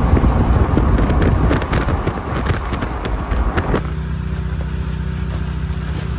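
Vehicle driving noise: a rough engine and road rumble with scattered rattles and clicks. About four seconds in it cuts abruptly to a steady, even engine hum.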